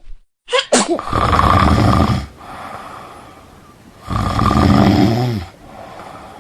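Woman snoring loudly: two long snores about three seconds apart, each lasting just over a second, with quieter breathing between them.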